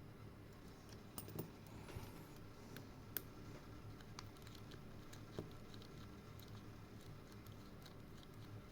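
Faint, scattered small clicks and taps, like small metal tools and parts handled on a watchmaker's bench, over a low steady hum.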